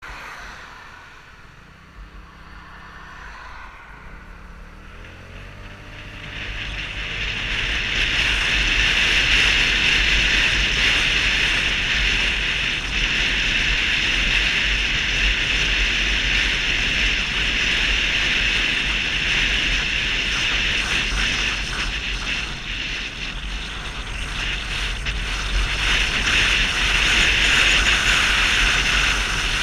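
Vespa 250 GTS scooter's single-cylinder engine pulling away, its note rising for the first few seconds. From about six seconds in it is cruising, under a loud, steady rush of wind on the microphone and road noise.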